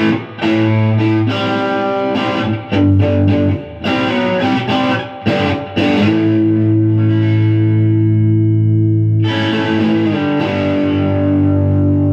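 Telecaster-style electric guitar played through an overdrive pedal: choppy picked notes and chords for the first six seconds, then a chord struck and left to ring, struck again about nine seconds in and held.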